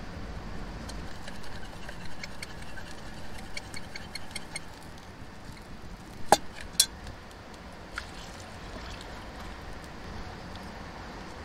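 Small metal camp pot and mug being handled: a run of light ringing clinks, then two sharp metallic clanks about six seconds in and a lighter tap shortly after, over a steady background hiss.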